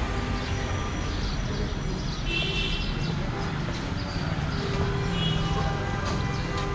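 City street ambience: a steady rumble of traffic, with short high-pitched tones standing out briefly about two seconds in and again about five seconds in.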